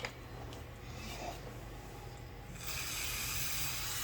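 A steady hiss of spray starts about two and a half seconds in and lasts a little over a second, while a carburetor part is being cleaned, over a low steady hum; a small click at the start.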